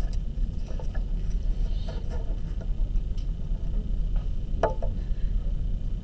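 Steady low hum of room noise, with a few faint short clicks and one brief faint sound about three-quarters of the way through.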